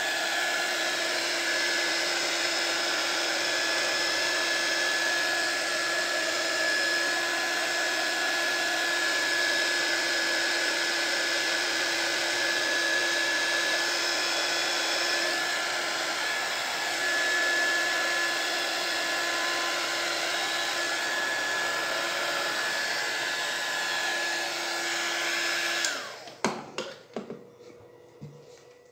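Small 300 W mini hot air gun running steadily, its fan blowing with a steady high tone over the rush of air. It cuts off about 26 seconds in, followed by a few sharp knocks.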